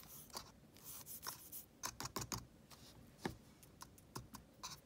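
Faint, irregular small clicks and taps of a wooden stick and fingers against a plastic tub of cornstarch as clay on the stick is rolled in the powder.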